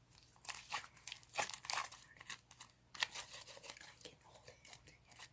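Faint, irregular crackling and rustling of close handling: a run of small pops and crinkles, busiest in the first half and thinning out toward the end.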